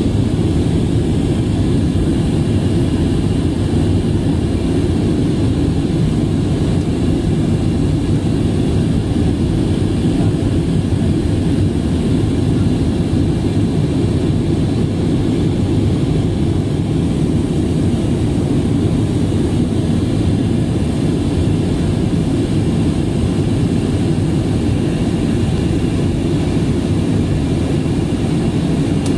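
Steady cabin noise of an Airbus A320 in flight: a constant low rumble of jet engines and airflow, heard from a window seat.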